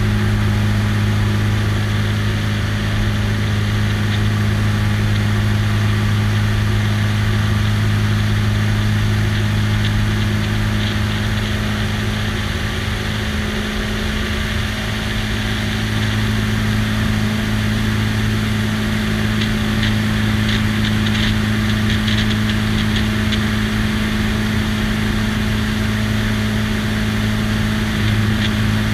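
A light biplane's piston engine and propeller droning steadily in level flight, a low even hum with a rush of air over the wing-mounted microphone.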